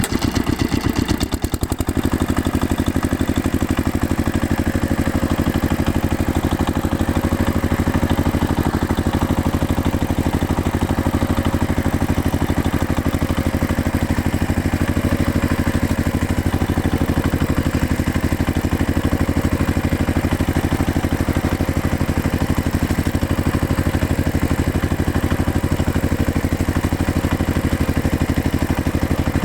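Tractor engine running steadily at a constant speed, with a brief dip in its sound about a second and a half in.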